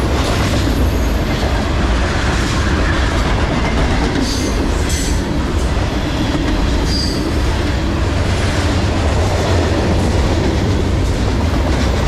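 Freight cars rolling past on steel rails: a steady, loud rumble and rattle of wheels and car bodies, with a few brief high wheel squeals about four to five seconds in and again about seven seconds in.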